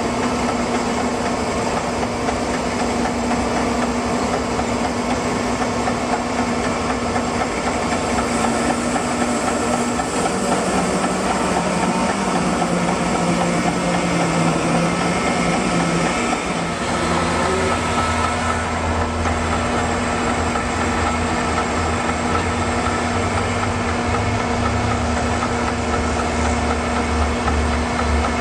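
Sawmill engine running steadily as the mill saws boards from a walnut log. Its pitch shifts twice, about ten seconds in and again a few seconds later, when a deeper hum comes in.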